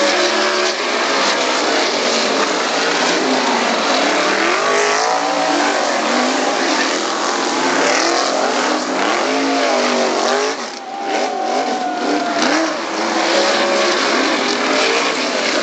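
Winged sprint cars racing round an oval, their engines revving up and down in pitch as they accelerate and lift through the bends and pass. The sound dips briefly about eleven seconds in, then builds again.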